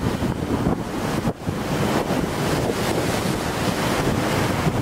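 Strong wind buffeting the microphone over the steady rush of a rough sea.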